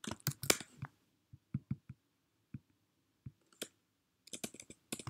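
Computer keyboard and mouse clicking. A quick run of key taps comes at the start, then scattered single clicks, then another quick run of taps near the end.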